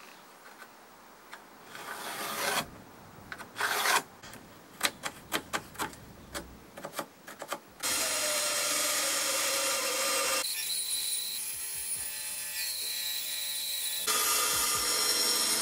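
Pencil scratching and rubbing on a pine board as dovetail joints are traced, with a run of quick clicks. About eight seconds in, a bandsaw takes over, running steadily as it cuts the dovetails in the pine repair piece.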